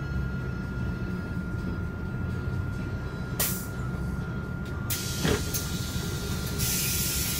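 Solaris Urbino 15 city bus's engine running low as the bus pulls into a stop, heard from inside near the front, with two short air hisses from the pneumatic brakes about three and five seconds in. Near the end a longer hiss sounds as the front door opens.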